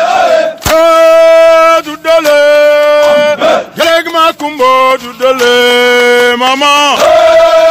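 Male voices singing a Senegalese soldiers' chant, holding long notes of about a second each with short breaks between them.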